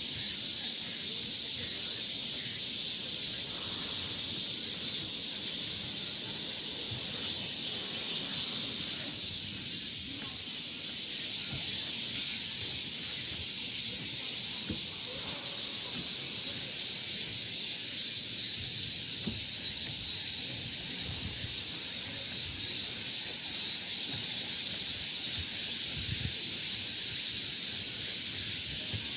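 Steady high-pitched chorus of summer insects, a dense shimmering hiss; the highest part of it grows louder about nine seconds in.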